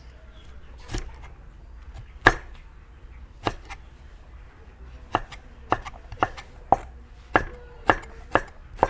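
Cleaver chopping fresh bamboo shoots into strips on a thick wooden chopping board: sharp knocks of the blade striking the wood, a few spaced out at first, then about two a second.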